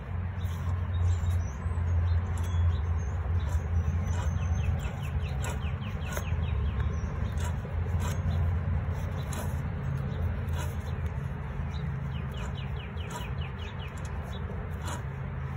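Rear wheel hub of a 2004 Toyota Prius spun by hand, with a low steady rumble that swells and fades, from a rusty wheel bearing that is hard to turn. Birds chirp in short runs in the background.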